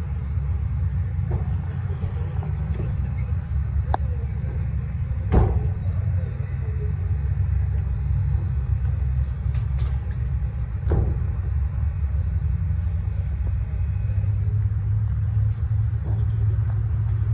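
Low, steady rumble of a column of sports cars rolling slowly up the track behind a safety car, with two sharp cracks, about five seconds in and again near the eleven-second mark.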